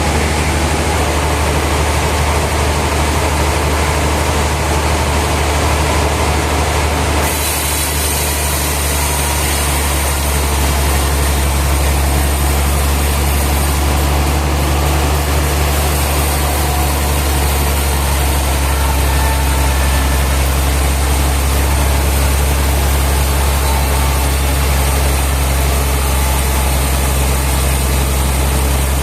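Sawmill machinery running steadily with a low, even engine-like hum. The sound changes abruptly about seven seconds in, brightening in the upper range.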